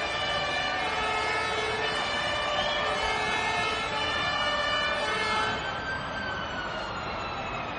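Several police and fire-engine sirens sounding together over a background rumble. About five and a half seconds in, the louder tones drop away and one siren's pitch slowly falls.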